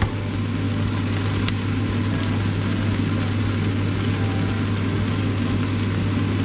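Steady cooking noise from a wok of fried kway teow on the stove: an even rushing sound over a constant low hum, with one faint utensil tick about a second and a half in.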